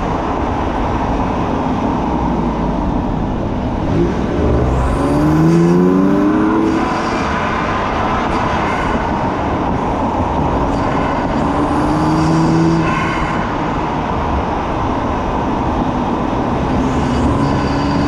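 BMW F80 M3's twin-turbo inline-six through an M Performance titanium exhaust, driven along a winding road over steady tyre and wind noise. The engine note rises in pitch about five seconds in and swells again around twelve seconds.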